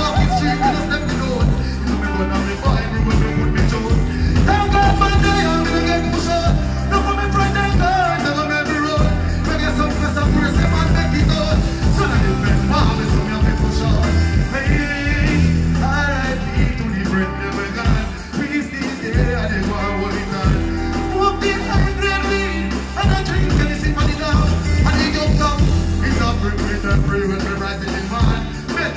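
Live dancehall performance through a large PA sound system: a heavy bass-line riddim with a male vocalist deejaying over it.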